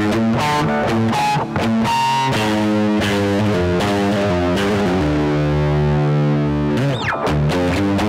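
Distorted electric guitar: a Fender Stratocaster played through a Marshall Jackhammer distortion pedal, picking a heavy riff of quick notes and a held chord, with a quick downward slide about seven seconds in.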